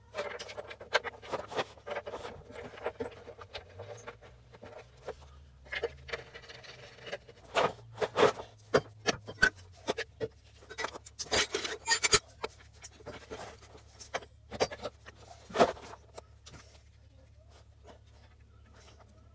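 Irregular metallic knocks, clicks and scrapes of hand tools and steel parts as a truck's transmission cross member and its bolts are fitted. The sharpest knocks come in the middle, and it dies down to faint handling noise in the last few seconds.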